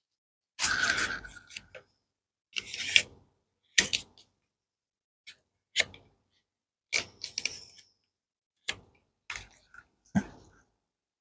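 Handling noises from a DIY candy kit worked on a table: about ten irregular taps, clicks and rustles, with short silences between.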